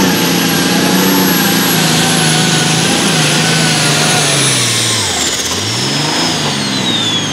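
International Harvester light limited super stock pulling tractor's turbocharged diesel engine running flat out under load, with a steady high turbo whine. About four and a half seconds in, the whine and engine note fall in pitch as the tractor passes.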